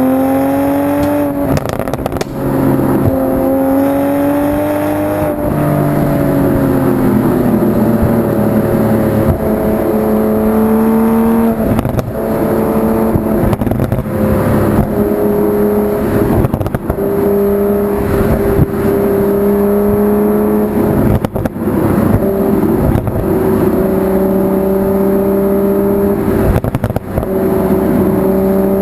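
2020 Toyota GR Supra with its stock exhaust, engine running under way: its note climbs briefly at first, drops a few seconds later, then holds a steady lower pitch, with several sharp exhaust pops scattered through it.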